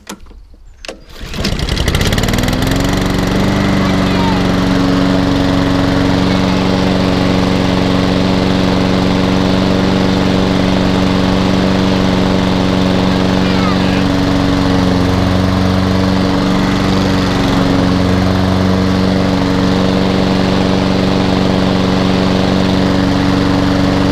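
Honda four-stroke engine on a Hayter 48 rotary lawnmower starting at the first pull about a second in, its revs rising quickly to a steady fast running speed and running smoothly.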